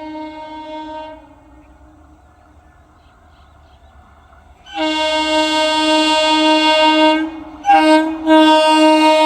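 Indian Railways train air horn sounding a chord of several steady tones. A fainter blast ends about a second in; after a few seconds' pause comes a loud long blast, a brief break, a short blast and another long blast.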